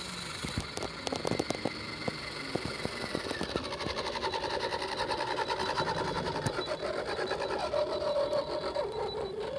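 The electric motor and gearbox of a radio-controlled scale UAZ jeep whirring as it drives, with a few clicks in the first couple of seconds. The whine drops in pitch about three seconds in, then holds steady with a fast, even buzz.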